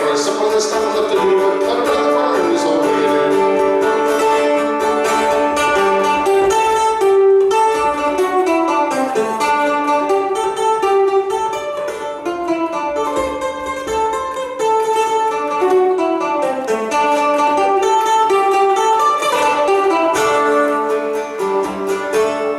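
Live acoustic folk music: an instrumental passage led by plucked strings, guitar-like, with a steady stream of picked notes and no singing.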